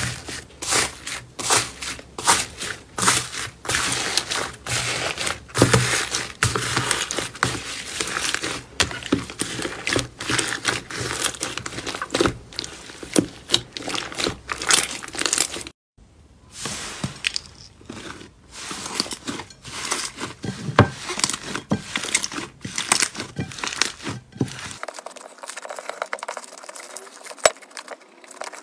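Hands squeezing and pressing slime: a dense run of crackles, pops and squelches, including foam-bead slime (floam) crackling under pressing fingers. There is a short break about 16 s in, and the sound turns quieter and thinner near the end as fluffy slime is kneaded.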